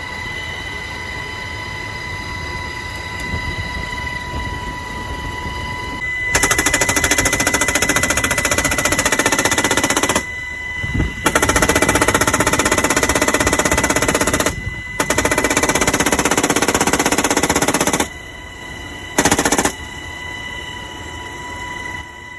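Helicopter door-mounted machine gun firing long bursts of rapid automatic fire, three sustained bursts of several seconds each and then one short burst. Under and between the bursts, the MH-60S helicopter's cabin noise runs steadily with a high whine.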